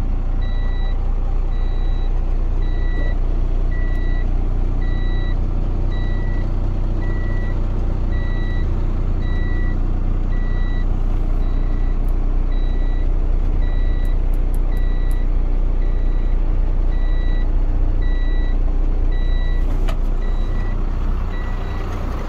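Iveco Trakker AD190T33 hooklift truck's six-cylinder diesel engine idling, heard from inside the cab, with an electronic warning beep repeating about once a second.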